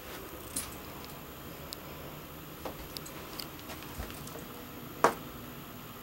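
Scattered light clicks and taps from movement inside a small travel-trailer interior, with one sharp knock about five seconds in, over a steady faint hum.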